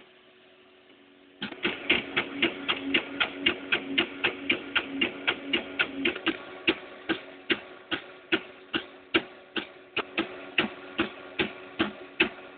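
3D printer at work: sharp regular clicking starts suddenly about a second and a half in, about four clicks a second at first and slowing to two or three a second, over a steady motor hum whose lower tone drops out about halfway through.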